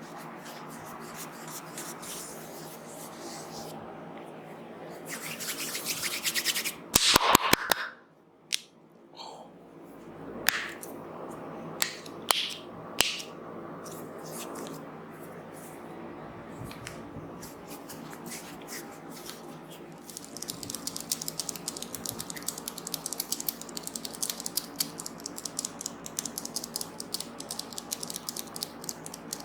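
Hands massaging a head and hair: steady rubbing, a quick run of sharp clicks about seven seconds in, then a few single sharp snaps. From about twenty seconds on comes a fast crackling patter of fingers working through the hair.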